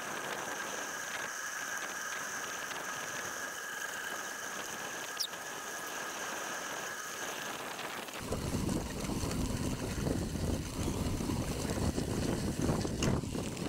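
Bicycle riding noise on a gravel path: a steady hiss with a thin high whine for about eight seconds, then a louder, rough rumble sets in and runs on.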